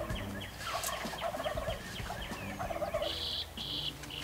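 Wild turkey gobblers gobbling several times in answer to a hunter's owl hooter call, a tube call blown to imitate an owl's hoot: shock gobbles from toms roused by the owl call. Small birds chirp throughout.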